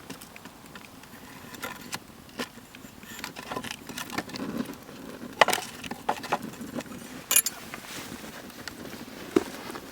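Wood fire crackling, with irregular snaps and pops from the burning wood; the sharpest pops come about five and a half and seven and a half seconds in.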